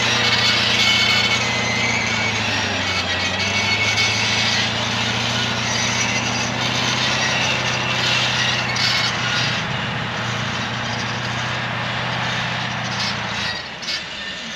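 Kirovets K-742 tractor engine running steadily under load while pulling a cultivator through wet ground, with a loud broad rush over the engine drone. The sound drops away near the end.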